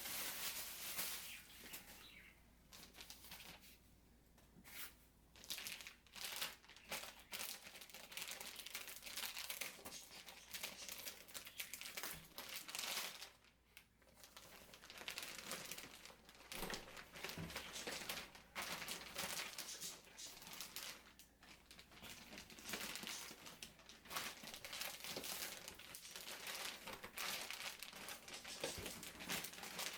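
Bubble-wrap and foam packing being pulled off a chair seat and crumpled by hand, crinkling and rustling in irregular bursts with occasional tearing.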